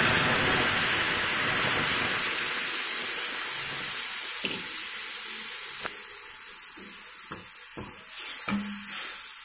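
Tamarind juice poured into a hot kadai of fried masala paste, hissing and sizzling as it hits the pan, the hiss fading slowly over several seconds. A steel spoon then stirs the curry, with light clicks and scrapes against the pan.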